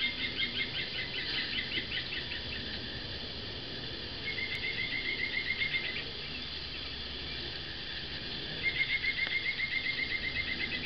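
A songbird singing a rapid, even trill of about eight notes a second on one pitch. It sings three trills, each one and a half to two seconds long, a few seconds apart, over a faint steady outdoor background.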